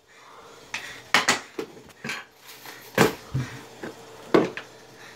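Small objects knocked and shifted about on a wooden roll-top desk: a string of irregular sharp knocks and clinks, loudest about three seconds in and again just past four seconds.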